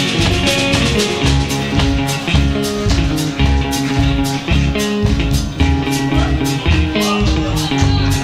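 Live rock band playing: electric guitars, bass guitar and drum kit over a steady beat, with an acoustic guitar in the mix.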